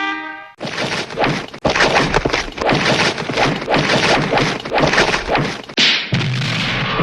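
Hanna-Barbera cartoon fight sound effect: a rapid, continuous jumble of whacks, thuds and crashes lasting about five seconds, following the tail end of a steady horn-like tone at the start.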